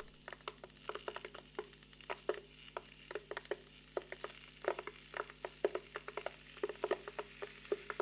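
Electric 2-litre kitchen kettle heating water: irregular crackling and ticking, several small clicks a second, over a faint steady hum.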